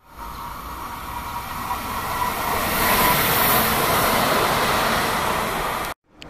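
Electric tram-train railcar approaching and rolling past on the track, its noise building to a peak about three seconds in, with a steady high whine running under it. The sound cuts off abruptly near the end.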